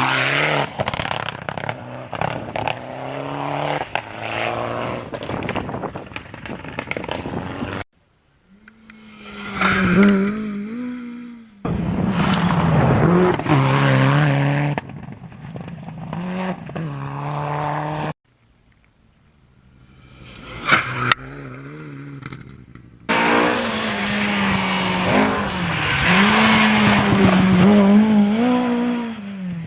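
Rally cars going flat out through a gravel forest stage in a run of short clips, each car approaching and passing with its engine revving up and down through gear changes and gravel scraping under the tyres. Two of the clips start near silent and build quickly as a car arrives.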